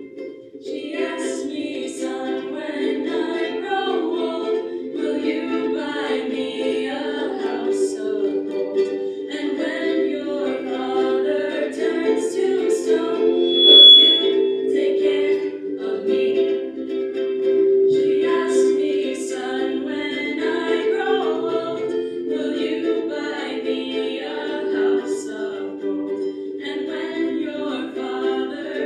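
A small group of women singing together to their own ukuleles, several ukuleles strumming chords beneath the voices, with short breaks between sung phrases. A brief high tone sounds about halfway through, the loudest moment.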